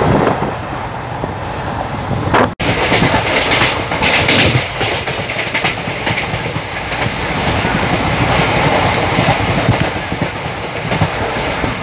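Passenger train running at speed, heard from an open coach door: steady rumble of the wheels on the rails, with clickety-clack over the rail joints. About two and a half seconds in, the sound cuts out for an instant.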